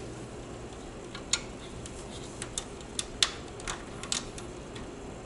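Irregular light clicks and ticks of small parts being handled inside an open desktop PC case, about ten in all, the sharpest a little past three seconds in, over a steady low hum.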